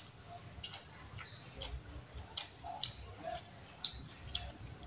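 A person eating with their hand, chewing with wet smacks and sharp mouth clicks. The loudest clicks come a little past two seconds in and just under three seconds in.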